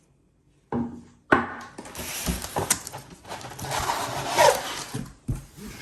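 Cardboard box being opened and its packaging handled: flaps and cardboard pieces scraping and rubbing, with a sharp snap about a second in and a short squeak of rubbing later on.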